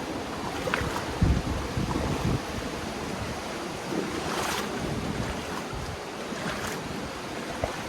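Sea waves breaking and washing on the shore, with wind buffeting the microphone; one wave surges up loudest about halfway through.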